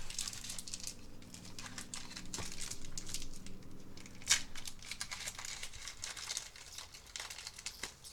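Foil trading-card booster pack wrappers crinkling and rustling as they are handled and torn open, with a sharper snap about four seconds in.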